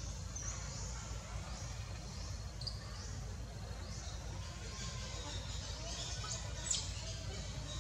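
Outdoor ambience: a steady low rumble with a few faint high chirps, about half a second in, near the middle and once more near the end.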